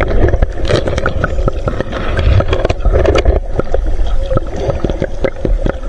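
Muffled underwater noise heard through a submerged camera: a low rush of moving water and bubbles, broken by many scattered sharp clicks and crackles.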